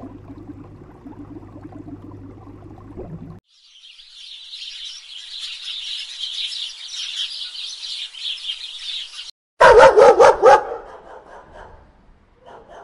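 Sparrows chirping in a dense flock chatter for about six seconds, then a dog gives a quick run of about five loud barks. Before the birds, a low steady hum.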